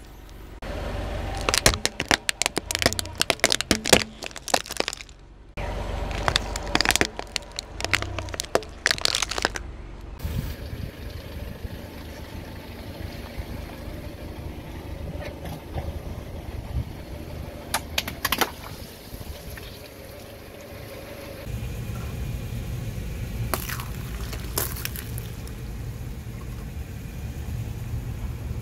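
Car tyre rolling slowly over and crushing small objects on asphalt. About ten seconds of dense crackling and crunching comes first, then a quieter stretch with a few isolated cracks, and a low rumble of the car in the last several seconds.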